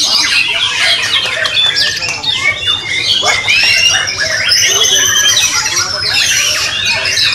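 White-rumped shamas (murai batu) singing over one another in a dense tangle of whistles, rising and falling glides, trills and harsh notes, several birds at once.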